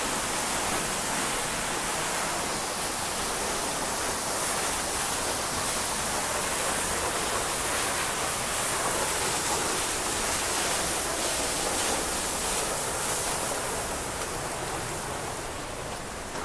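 Tunnel Falls, a tall waterfall, pouring and splashing in a steady dense rush of water noise, growing a little fainter near the end.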